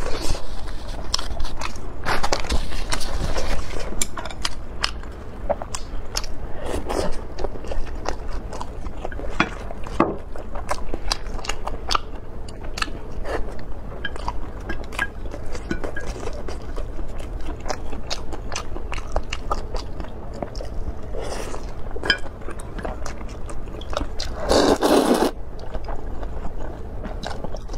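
Close-up eating sounds: chewing with many small wet mouth clicks. About three seconds before the end comes one loud slurp of hot and sour glass noodles.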